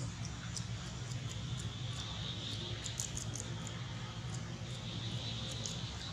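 Outdoor forest ambience: a steady low hum under a high buzzing hiss that swells twice, with many short high chirps or squeaks scattered throughout.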